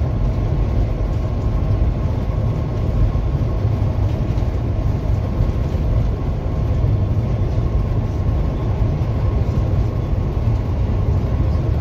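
Steady engine and road noise inside a truck's cab while cruising, a heavy low rumble with no change in pitch.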